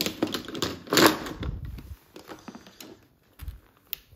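Golf irons being handled and moved on a wooden floor: scattered clicks, knocks and rustling, loudest about a second in, with a few dull thuds later.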